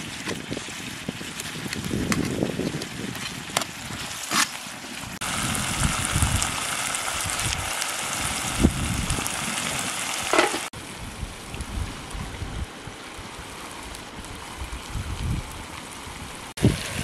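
Chopped tomatoes and onions sizzling in a black pot over a wood fire, with a few clinks of the metal ladle against the pot as it stirs. The sizzle grows louder and brighter about five seconds in and drops back near eleven seconds.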